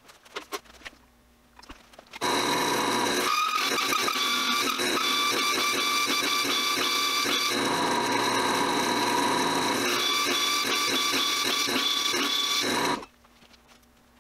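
Drill press driving a hand-sharpened DeWalt hole saw through quarter-inch steel plate: a steady, loud, high-pitched metal-cutting screech with a fast regular ticking from the teeth. It starts about two seconds in, after a few clicks, and stops abruptly near the end. The reworked teeth are now biting and the cut is making progress.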